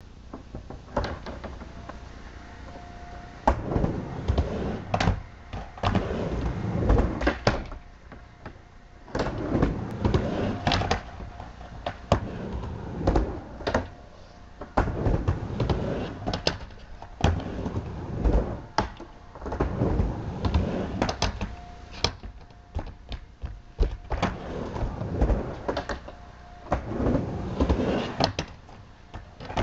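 Skateboard rolling back and forth on a miniramp: runs of wheel rumble that swell and fade with each pass, punctuated by sharp knocks as the board hits the ramp and coping.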